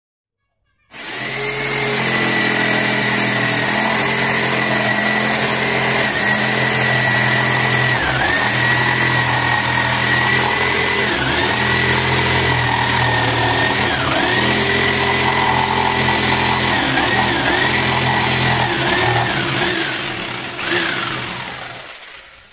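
Electric jigsaw starts about a second in and cuts through a 15 mm rubberwood panel, its motor whine dipping briefly again and again as the blade loads up. Near the end it is switched off and winds down with a falling whine.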